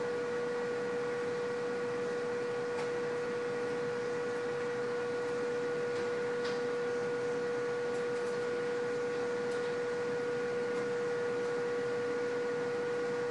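A steady electrical hum at one fixed pitch, with a few fainter higher tones, over an even hiss.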